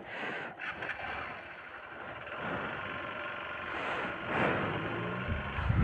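Hero XPulse 200 4V's single-cylinder engine idling steadily with the bike stopped.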